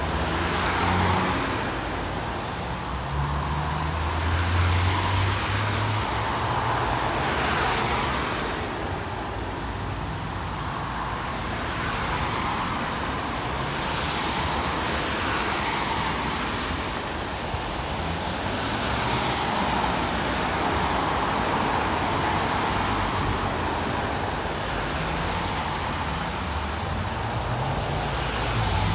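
Roadside traffic: cars and other vehicles passing one after another in a steady stream of tyre and engine noise, with a low engine drone about four to six seconds in.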